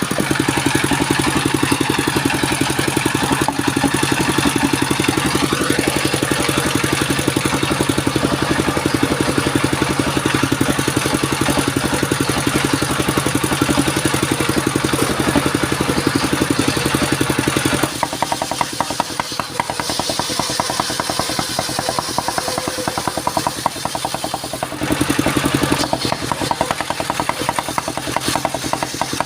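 Engine driving a circular wood saw, running steadily with an even pulsing beat. About two-thirds of the way through its note changes and drops a little, then swells again briefly.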